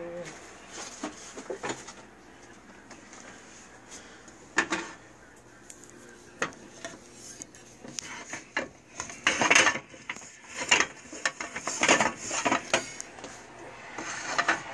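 Cookware clattering and knocking on a gas stove's burner grates: a few sharp knocks at first, then a dense run of clattering in the second half.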